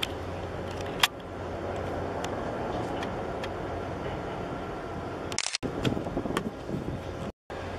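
Steady low outdoor rumble with a sharp camera-handling click about a second in and a few softer clicks later; the sound cuts out briefly twice in the second half.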